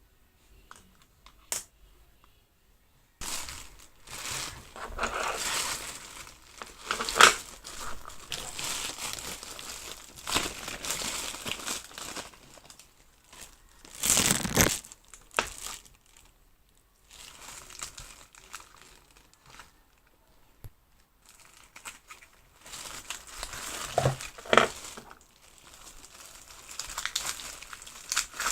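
Plastic packaging of a Popin' Cookin' candy kit crinkling and rustling as it is handled, in irregular bursts with a few sharper crackles and short pauses.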